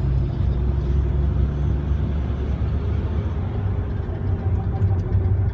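Road and engine noise from inside a moving vehicle: a steady low rumble, with a low hum that drops away about two seconds in.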